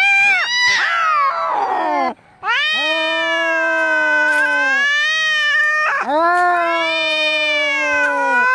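Angry cat caterwauling in long, drawn-out, wavering yowls, the kind of yowling heard in a cat fight. There are three yowls in a row: the first turns rough partway through and breaks off about two seconds in, and the next two follow almost without a pause.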